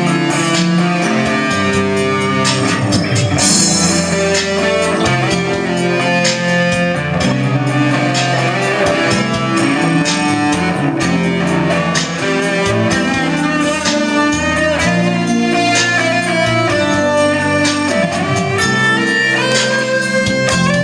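Instrumental music led by guitar, with bowed strings and a steady bass line.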